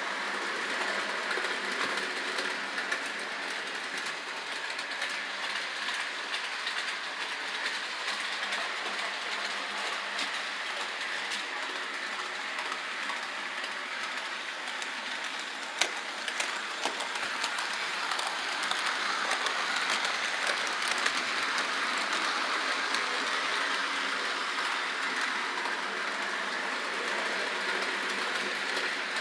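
HO-scale model train running on sectional track, a steady rattle of small wheels over the rail joints with scattered clicks and one sharper click about sixteen seconds in.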